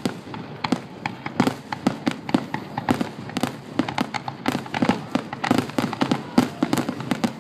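Fireworks finale: a rapid, unbroken string of bangs and crackling reports, several a second.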